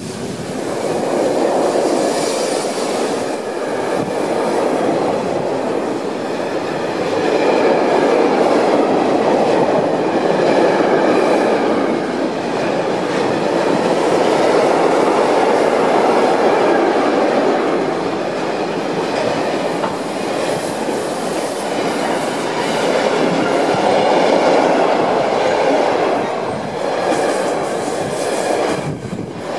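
A mixed freight train's wagons rolling past at close range: a steady rumble of steel wheels on rail that swells and eases in turns as flat, open and covered wagons go by.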